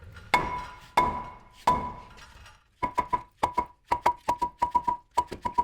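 Hammer blows on rust-stuck front brake parts of a Ford F350, each strike leaving a short metallic ring. Three slow, spaced blows come first, then quicker strikes in tight clusters from about three seconds in.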